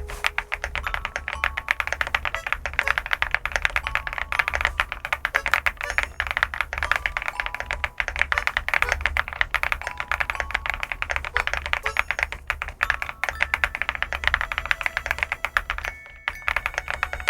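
Fast, continuous typing on an SPM LUCK68 custom mechanical keyboard: a dense stream of keystroke clacks, with a brief pause about sixteen seconds in.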